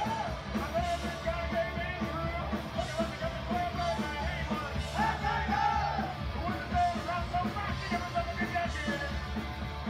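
Punk rock band playing live, heard from within the audience: fast, steady drum beat under electric guitars, with shouted singing that comes forward about five seconds in.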